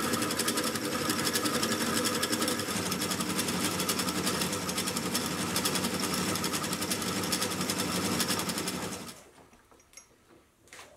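Sieg X2.7L mini milling machine cutting a dovetail into a metal block with a dovetail cutter: a steady machining noise with a fast, even rhythm. It stops about nine seconds in.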